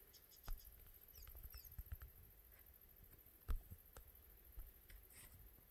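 Near silence: a few faint scattered clicks and rustles, with occasional faint high chirps.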